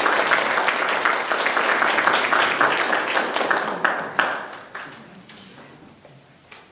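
Small audience applauding, the clapping dying away about four to five seconds in.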